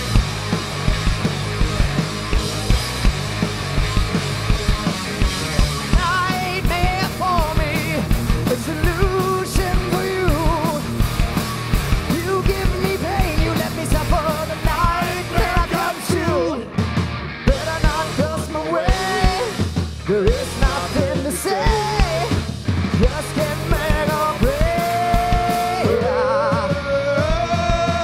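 Live punk rock band playing: distorted electric guitars, bass guitar and a pounding drum kit. From about six seconds in, a wavering melody line bends in pitch above the band.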